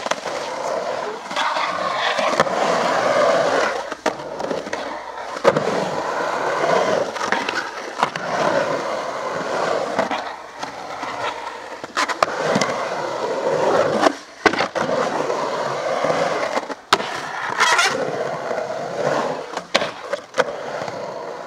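Skateboard riding a concrete bowl: the urethane wheels rolling on the concrete with a steady rumble and the metal trucks grinding along the coping, broken by several sharp clacks of the board hitting the lip and landing.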